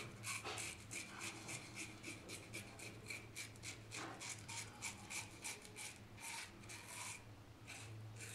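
Razorock BlackHawk single-edge safety razor with a Kai blade scraping through lathered stubble in short, quick strokes, several a second, on the against-the-grain pass.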